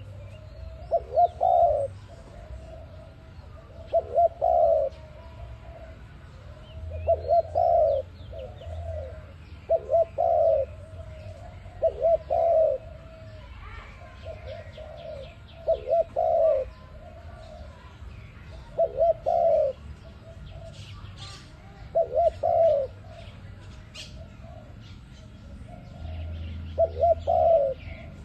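Tekukur (spotted dove) cooing: a low phrase of a few short coos, repeated about every three seconds, nine times. Faint chirps of small birds in the background.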